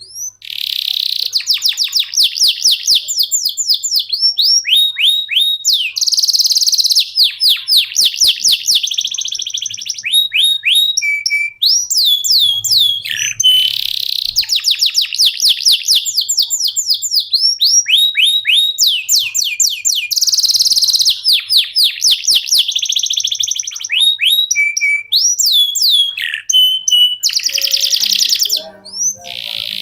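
Domestic canary singing a long, nearly unbroken song of fast trills and rolls, each phrase a rapid run of repeated sweeping notes, changing from one phrase to the next every second or two.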